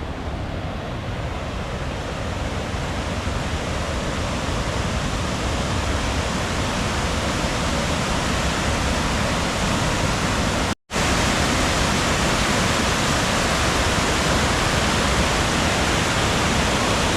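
Waterfall running: a steady rush of falling water that grows gradually louder over the first ten seconds or so, broken once by a split-second silence about eleven seconds in.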